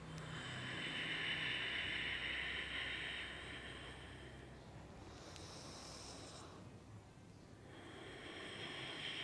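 A woman breathing slowly and audibly in long, paced breaths: one long breath at the start, a shorter, higher-sounding one around the middle, and another beginning about two-thirds through.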